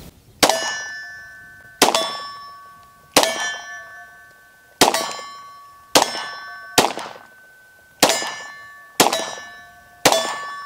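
Nine shots from a Glock 43X 9 mm pistol fired about a second apart. Each shot is followed by the ringing of a struck steel target, marking a hit.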